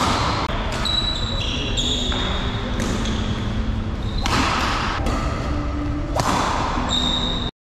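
Badminton doubles rally: rackets striking the shuttlecock several times, seconds apart, with sneakers squeaking on the court floor and the hits echoing in a large hall. The sound cuts off abruptly just before the end.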